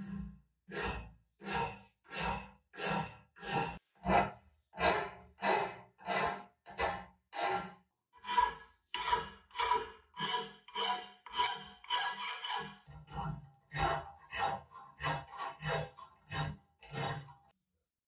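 Rasping back-and-forth strokes of a hand abrasive tool worked over a part of an old rusted coffee grinder during restoration. The strokes are steady and rhythmic, about one and a half a second, and get a little quicker after the middle.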